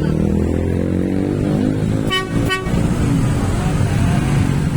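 Tour bus engine running, with the bus horn giving two quick toots about two seconds in.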